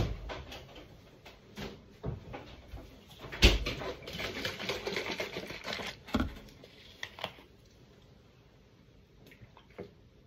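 Handling of a plastic shaker bottle and its lid: scattered clicks and knocks, with a sharp knock about three and a half seconds in and a scratchy, noisy stretch just after it, then only faint small sounds.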